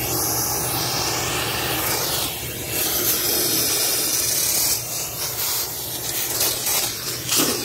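Shop vac running, its nozzle drawn along the grille of an outdoor AC condenser, sucking dust and debris off the coil fins. The hiss of the suction rises and dips a few times as the nozzle moves.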